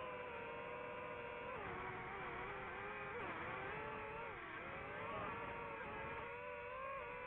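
DJI FPV drone's motors and propellers whining, the pitch dipping and rising several times as the throttle changes, lowest about four and a half seconds in.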